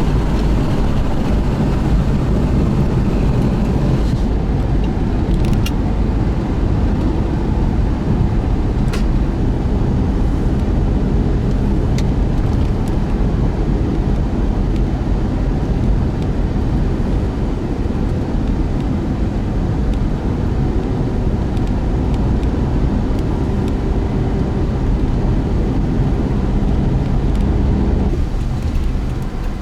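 Car driving on the road: steady tyre and road noise with engine hum, and a few sharp clicks partway through.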